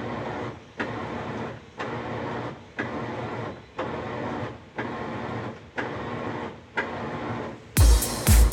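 Washing machine running, a mechanical whir that starts sharply and fades off again about once a second. Near the end a heavy electronic kick-drum beat comes in.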